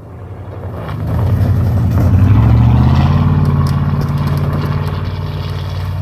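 Off-road vehicle engine pulling hard, getting much louder over the first two seconds, then running steadily.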